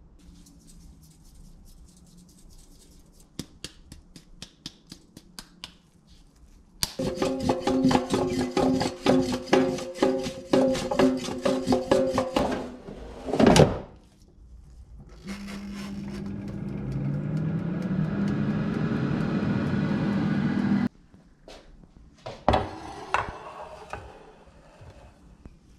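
Potato wedges rattling and clattering in an air fryer basket, then a heavy thunk as the basket goes in. The air fryer's fan then starts with a hum that rises in pitch, runs steadily for about five seconds and cuts off suddenly.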